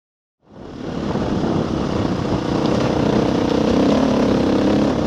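Enduro motorcycle engine running steadily under way on a gravel trail, heard through the rider's onboard camera. Fades in about half a second in.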